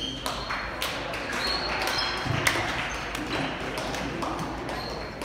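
Gymnasium ambience: sneakers squeaking on the hardwood court, scattered sharp taps and thuds, and indistinct chatter, echoing in the large hall.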